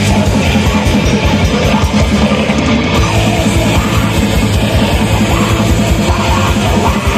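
Live heavy metal band playing loud: distorted guitars over fast, dense drumming.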